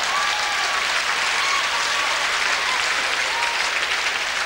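Large theatre audience applauding steadily after a punchline.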